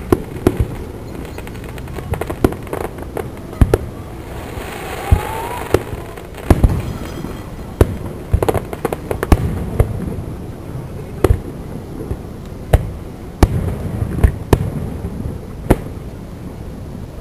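Aerial fireworks bursting: a continuing run of sharp booms at irregular intervals, with a short rising whistle about five seconds in.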